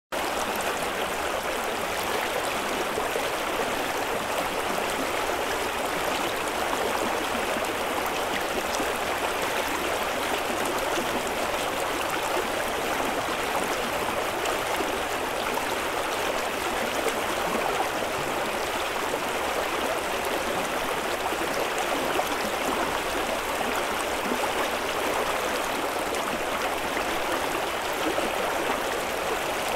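Shallow river flowing over stones in a riffle, a steady rush of running water.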